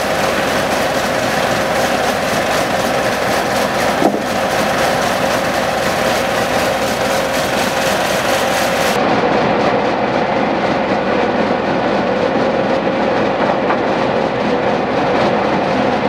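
International UD18 diesel engine running steadily under no load, driving a circular sawmill whose blade spins free between cuts. The result is a loud, even drone with a steady whine on top. One short knock comes about four seconds in.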